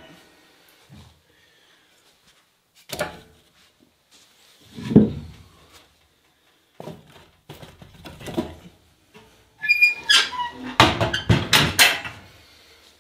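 Split firewood being set into a wood stove's firebox, a few separate knocks and thuds of wood on wood and metal. Near the end the stove's metal door is swung shut and latched with a quick run of clanks.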